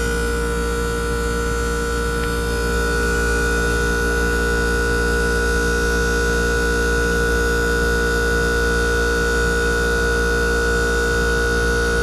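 2014 American Standard 13 SEER 2.5-ton heat pump outdoor unit running in its defrost cycle: a steady compressor hum with a high whine over it. The whine rises slightly in pitch about two and a half seconds in.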